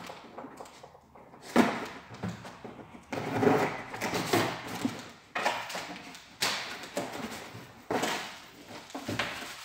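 Cardboard box being slit along its tape with a knife and its flaps pulled open: a run of short, irregular cardboard scrapes and rustles.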